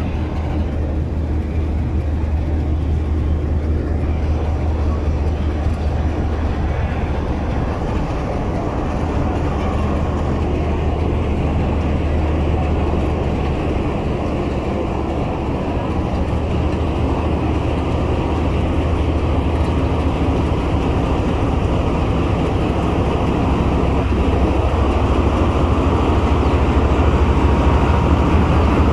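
RGE 24 diesel-electric locomotive's GE 7FDL-12 engine running with a steady low drone, growing gradually louder as the locomotive draws up alongside near the end.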